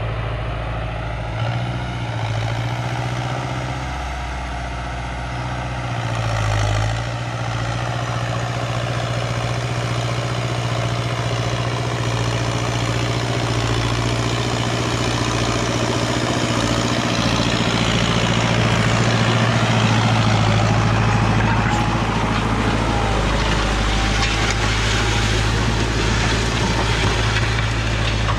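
Valtra BM110 tractor's diesel engine running steadily at a constant pitch while pulling a disc harrow, growing a little louder and noisier after about halfway.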